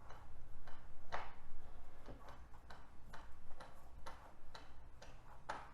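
A run of light clicks and taps, about two a second, from small plastic and metal phone parts being handled and fitted as the Nexus 5's speaker assembly goes back in.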